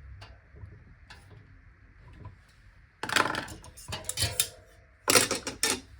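Metal clinking and clattering from tools on a bicycle wheel's spokes during spoke tightening and tension checking, with faint clicks and two louder clattering bursts about three seconds and five seconds in.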